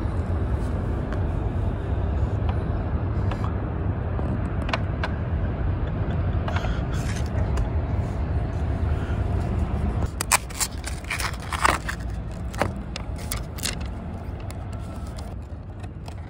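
Clear plastic bento container and its paper band handled and opened. After a stretch of low rumble, a run of sharp plastic crackles and clicks comes in the second half as the lid is worked loose.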